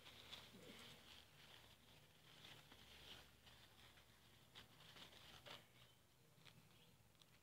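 Near silence, with faint scattered rustles and soft ticks of a stack of tissue paper being handled and smoothed flat.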